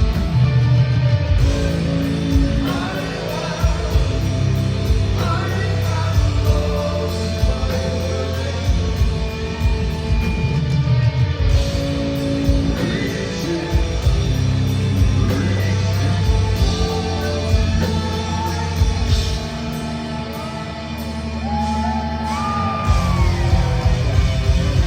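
Heavy metal band playing live: electric guitars, bass and drums under sung vocals. The low end drops out briefly about twenty seconds in, then the full band comes back in.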